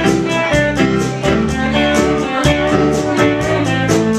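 Country song played on guitar in an instrumental break between sung lines, with steady strumming and no singing.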